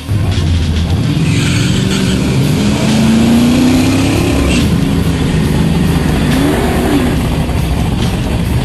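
Drag car engine accelerating hard, its pitch climbing steadily and then dropping at a gear change, with a second brief rise and fall later.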